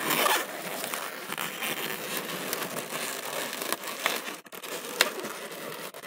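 Inflated latex twisting balloons rubbing and crinkling against each other and against hands as a balloon sculpture is turned and handled, with a sharp click about five seconds in.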